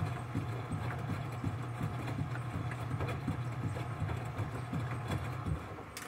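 Enxuta Master 3 front-loading washing machine washing: its motor hums steadily while the wet load turns in the drum, with a regular thump about three times a second. The motor stops near the end as the drum comes to rest.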